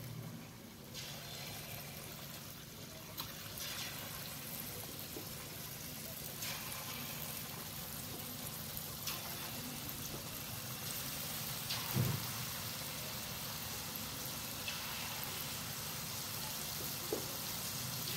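Marinated chicken pieces deep-frying in hot oil in a kadai, a steady sizzle with small crackles. A single louder knock comes about twelve seconds in.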